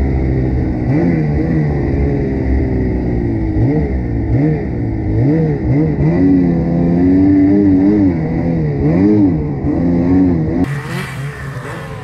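Ski-Doo Summit 850 snowmobile's two-stroke engine running hard in deep powder, its revs rising and falling over and over. About ten seconds in, the sound cuts to a rushing hiss of a sled throwing up snow spray.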